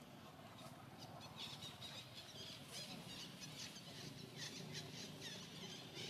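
Faint outdoor ambience with many quick, high-pitched animal chirps and squeaks, thickening after about four seconds, over a low background rumble.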